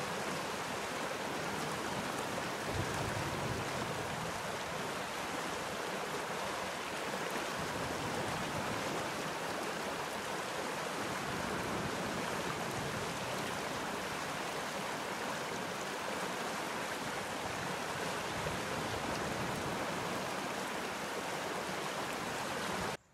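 A shallow, rocky creek rushing over stones in small rapids, a steady wash of running water that cuts off suddenly near the end.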